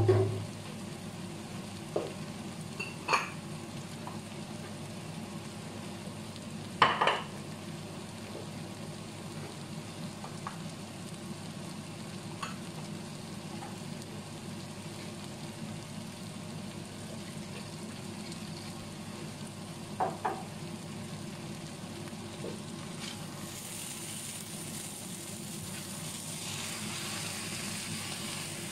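Sliced bitter melon and beaten egg sizzling steadily in a nonstick frying pan, with a few sharp clicks. Near the end the sizzle grows louder as a spatula turns the food.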